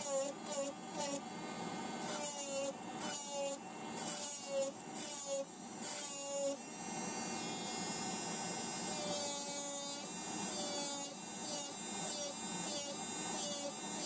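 Electric nail drill whining as its bit files a gel nail, the whine wavering in pitch as the bit is pressed to the nail, over the steady hiss of a nail dust extractor's fan.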